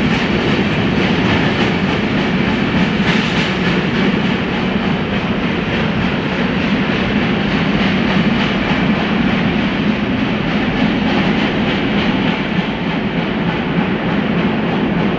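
Freight train of covered hoppers and boxcars rolling on the rails, a steady rumble with wheel clatter.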